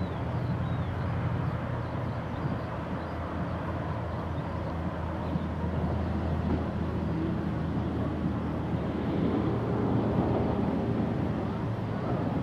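Airbus A340's four jet engines at takeoff thrust as the airliner accelerates down the runway: a steady engine rumble that grows a little louder about nine seconds in.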